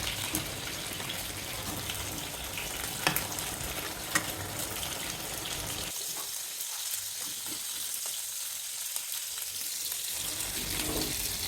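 Food sizzling in a hot pan, a steady hiss, with a couple of sharp clicks of a utensil against the pan about three and four seconds in.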